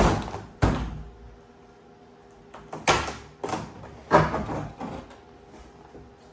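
Knocks and scraping of the loose cut-out section of a C4 Corvette roof panel being worked free and lifted out of its freshly sawn opening. There are two sharp knocks in the first second, then a run of knocks and scrapes from about three to five seconds in.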